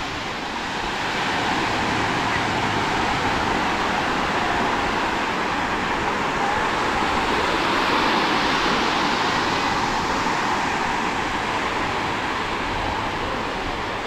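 Sea surf breaking and washing on the beach, a steady rush that builds through the middle and eases off near the end.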